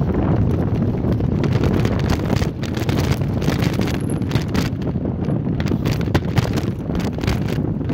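Wind buffeting the microphone of a handlebar-mounted camera on a mountain bike riding fast over a rutted dirt track. From about two and a half seconds in there are frequent rattles and knocks as the bike jolts over the bumps.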